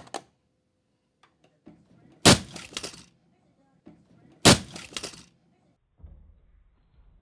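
Two heavy impacts about two seconds apart, each followed by a short burst of plastic cracking and crunching: a VHS cassette's plastic shell breaking as it is crushed under a treadmill.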